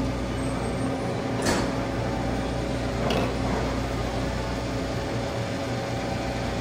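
Steady mechanical hum of restaurant equipment, with a sharp clink about a second and a half in and a fainter one about three seconds in.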